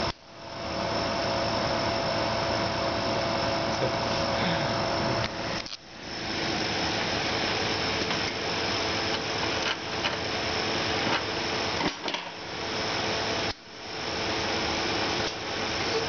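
Refrigeration condensing unit (Danfoss Optyma) running: a steady mechanical noise of compressor and fan with a few held tones, dropping out briefly three times.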